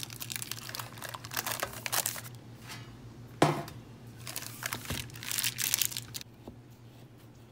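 Parchment baking paper crinkling and rustling as a slab of oat bars is lifted out of a metal baking tray, with one sharp knock about halfway through; the rustling stops about six seconds in.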